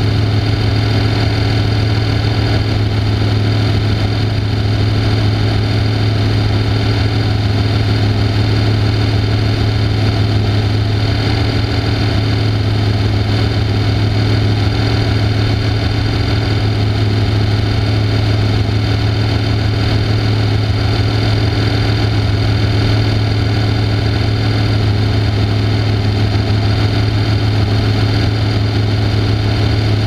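Off-road race car's engine idling steadily while the car stands still: an even low drone with no revving.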